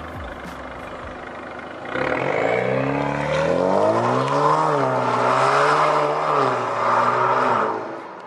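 Alfa Romeo Giulia with its muffler and resonator deleted accelerating away hard: the exhaust note climbs in pitch, drops briefly at an upshift about halfway, climbs again, then fades as the car drives off.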